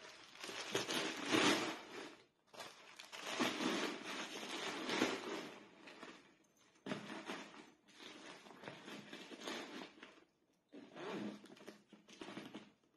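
Crinkling and rustling of packaging as hands rummage inside a new handbag and pull items out, in four bursts with short pauses between.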